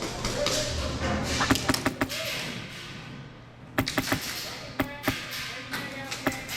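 Sharp snaps of airsoft guns firing and BBs striking, in irregular clusters: a quick run of shots about one and a half to two seconds in, then more scattered shots from about four seconds on, some followed by a brief ring.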